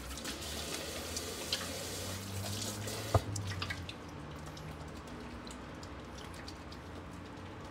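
Kitchen tap running into a stainless-steel sink over hands lathering a bar of soap, with splashes and drips. About three seconds in there is a sharp click and the running water stops, leaving quieter wet sounds of hands rubbing up lather.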